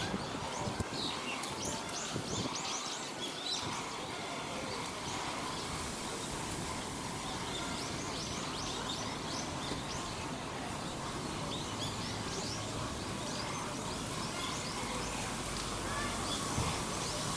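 Small birds chirping in quick clusters of short, high notes over a steady background of outdoor ambience.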